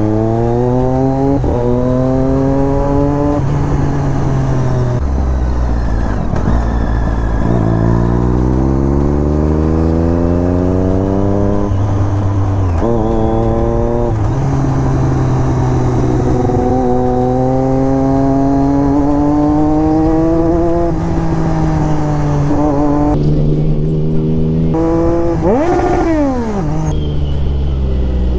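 Triumph Daytona 675 inline-three engine accelerating hard through the gears. The revs climb in each gear and drop at each upshift, several times over, then settle into a steadier run. Near the end the revs fall sharply and rise again.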